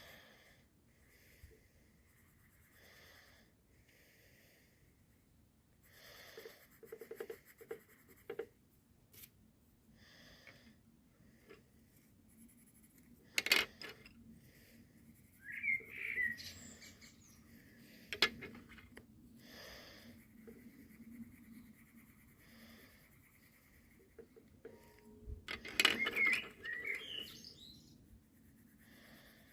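Coloured pencils stroking and scratching on paper, with scattered clicks. A few short chirps come about halfway through and near the end.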